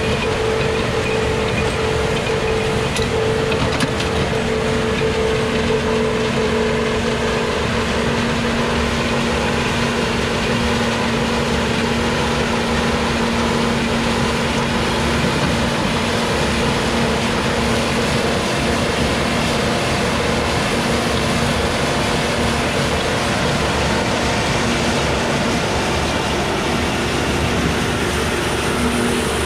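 Başak 2075 Plus tractor running under steady load while powering an Elibol square baler through its PTO, the baler working as it picks up straw and packs it into bales. A steady mechanical drone, with a lower steady tone joining about four seconds in.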